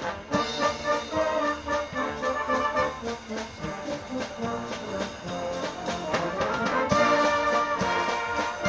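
Brass band playing a pop-rock arrangement, with sustained chords over a steady drum beat, growing louder about seven seconds in.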